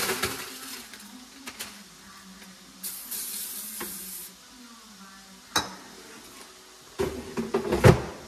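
Plastic bag rustling as frozen mozzarella sticks are tipped into an air fryer basket, with a clatter at the start. Then aerosol PAM cooking spray hisses over the basket for about a second and a half, a few light clicks follow, and near the end a burst of knocks and clatter comes as the basket is pushed into the air fryer.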